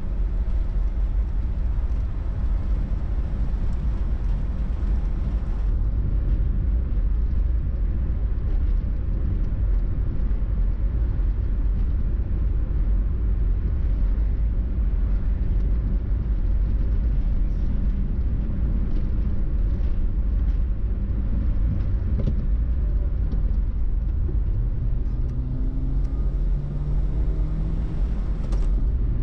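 Car engine and tyre noise while driving along a road, a steady low rumble; near the end the engine note rises as the car speeds up.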